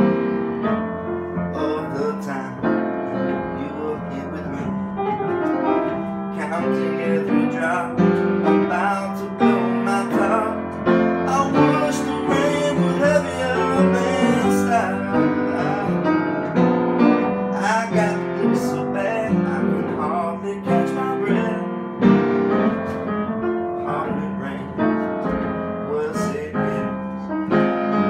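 Piano music: an instrumental piano passage, with many notes played continuously.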